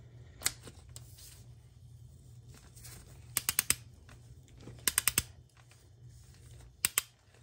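Ratchet clicks from a torque wrench being worked back and forth to run a new spark plug down: a single click about half a second in, then quick runs of about four clicks around three and a half and five seconds, and two more near the end.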